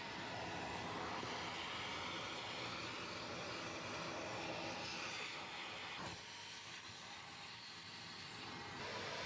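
Vacuum cleaner running steadily, its motor having just spun up, with a short knock about six seconds in.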